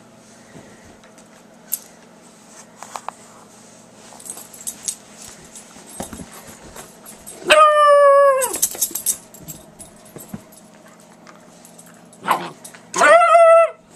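A dog giving two drawn-out, high-pitched cries while play-wrestling, the first about seven and a half seconds in and lasting about a second, dropping slightly in pitch at its end, the second shorter, near the end; faint small knocks between.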